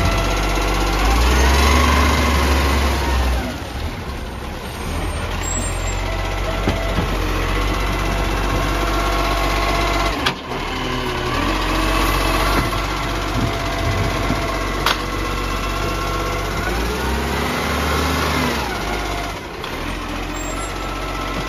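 Garbage truck's engine running, speeding up and easing back briefly near the start and again near the end. A sharp knock about ten seconds in, and a lighter one a few seconds later.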